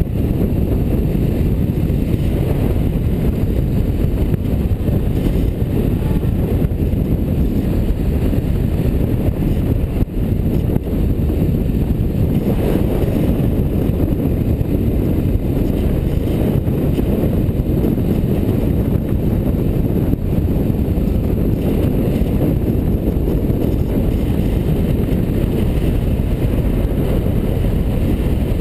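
Steady wind rush on a vehicle-mounted camera's microphone, with the running and road noise of a vehicle cruising along a winding road.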